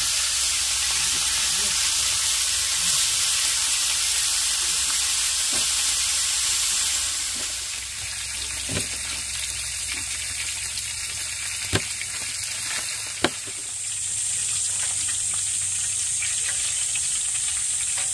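Sliced meat sizzling in a grill pan over a portable gas stove as a steady hiss. Midway the sizzling drops away and a few sharp knife taps are heard while vegetables are cut. Then the sizzling comes back.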